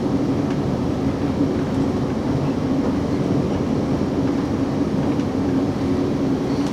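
Steady running noise heard inside a moving South Western Railway Class 458 electric multiple unit: an even rumble with a constant low hum.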